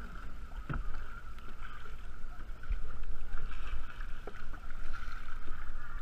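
Kayak being paddled on open water: paddle strokes and water splashing and lapping around the plastic hull, with a low rumble of wind on the microphone. A short knock comes just under a second in, and another a little before three seconds.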